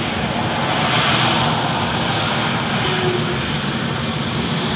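Jet engines of an Airbus A320-family airliner during its landing rollout on the runway: steady, loud engine noise that swells slightly about a second in.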